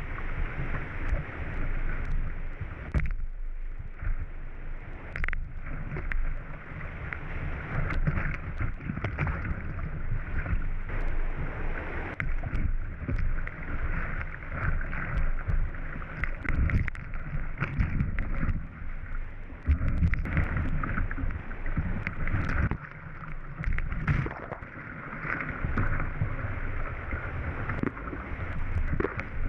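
Whitewater rapids rushing around a kayak, with irregular paddle strokes and splashes as waves break over the boat. The sound is muffled, with a low rumble of water and wind buffeting the camera.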